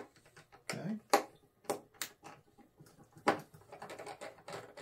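Irregular sharp clicks and taps of a 2 mm hex driver working out the four metal machine screws that hold the landing-gear plate on an RC plane's fuselage.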